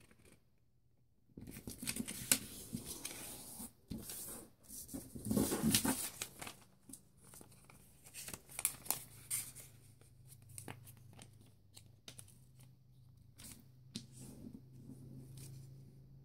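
Sheets of white paper handled by hand, rustling and crackling as they are folded and creased, with a louder tearing sound about five seconds in as a strip is ripped off.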